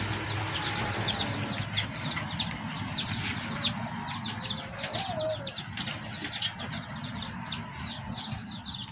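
Small birds chirping busily: short, high peeps that slide downward, several a second and overlapping, with a single lower gliding call about halfway through.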